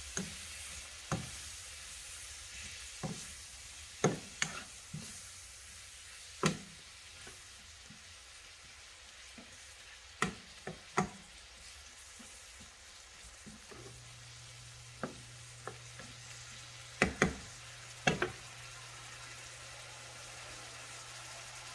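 Sliced onions, tomatoes and bell peppers sizzling quietly in a nonstick frying pan as they are stirred and mashed with a metal spoon. The spoon knocks and scrapes against the pan at irregular moments, a few seconds apart, and the knocks are the loudest sounds.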